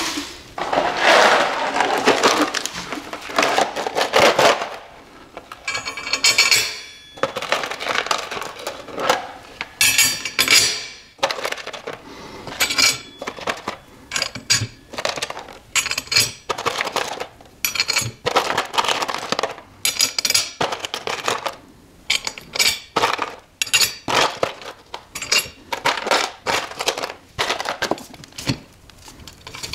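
Metal hardware being handled while a Galfer wave brake rotor is bolted to its stock carrier hat: bolts and nuts clink and the steel rotor clatters in irregular clicks and knocks, with a couple of brief metallic rings.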